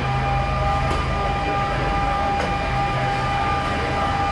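Steady machinery drone with a constant high-pitched whine over it, inside a large transport aircraft's cargo hold.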